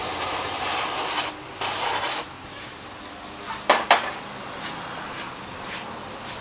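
Two hissing blasts of pressurised spray, one about a second and a half long and then a shorter one, followed about a second later by two sharp clicks in quick succession.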